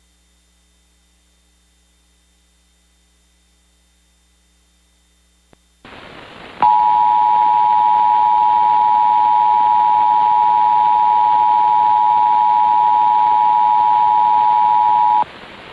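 Emergency Alert System attention signal: two steady tones (853 and 960 Hz) sounding together for about eight and a half seconds, then cutting off abruptly. Before it, a faint hum, a small click and a hiss of static coming on about six seconds in.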